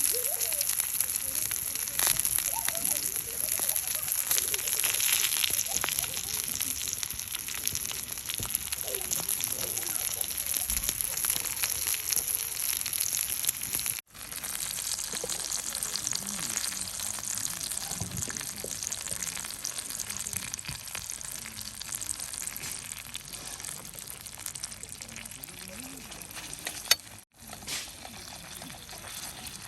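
Wood fire burning, a steady hiss dotted with small crackles and pops. It breaks off abruptly about halfway and again near the end.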